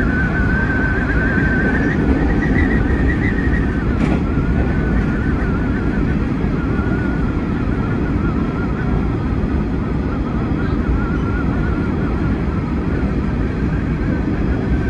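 Hanshin 9300 series electric train running at speed, heard from inside the driver's cab: a steady rumble of wheels on rail with a wavering high whine over it, and a single sharp click about four seconds in.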